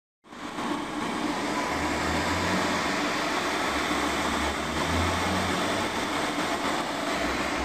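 Uchida Aerocut One card cutter running: a steady mechanical whir from the machine feeding and transporting a printed sheet, with a low hum that swells and eases.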